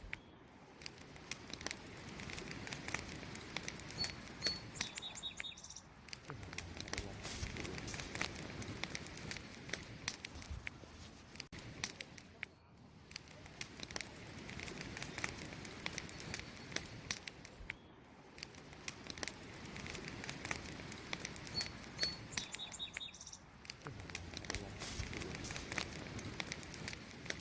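Wood fire crackling steadily with dense snaps and pops over a soft hiss, swelling and easing every few seconds. Brief high chirps sound twice, about four seconds in and again near the end.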